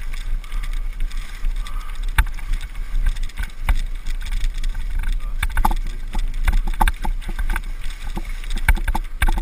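Bicycle ridden over a muddy, rough dirt trail: wind rumbling on the microphone, with frequent rattles and knocks as the bike jolts over the ground, more of them in the second half.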